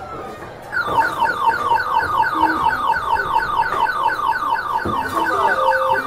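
Skee-Ball arcade machine beeping electronically: a rapid, even run of high beeps, about five a second, starting about a second in and running until near the end. A few lower single tones and a dull thud near the end sit beneath it.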